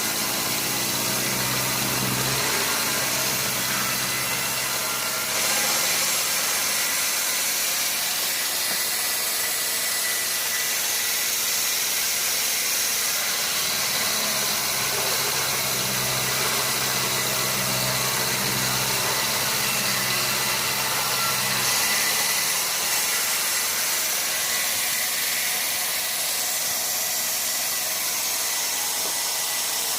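Sawmill machinery running steadily: a continuous mechanical hiss with a low engine hum that drops out about five seconds in and comes back for several seconds in the middle.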